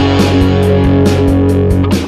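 Background music led by guitar, with bass and a steady beat.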